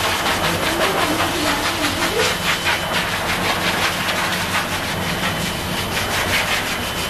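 Pet grooming blower dryer blowing air through its corrugated hose onto a freshly bathed cat's fur: a steady rush of air over a low motor hum.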